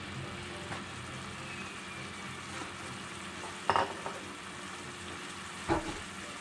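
Mushrooms in red wine and venison juices simmering in a skillet on the stove, with a steady sizzle. Two brief knocks come about four and six seconds in.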